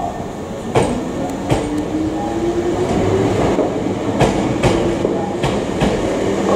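Hankyu Kyoto Line electric train running on the track: a motor whine rising in pitch as it picks up speed, and wheels clacking over rail joints in pairs over a steady rumble.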